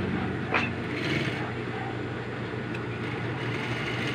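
Industrial single-needle sewing machine running steadily, stitching fabric, with a continuous motor hum. There is one brief click about half a second in.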